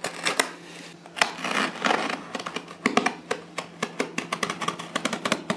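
Hands working at the packing tape and flaps of a cardboard shipping box: a rapid run of clicks, crinkles and short scrapes, with longer scraping sounds between about one and two seconds in, over a faint steady hum.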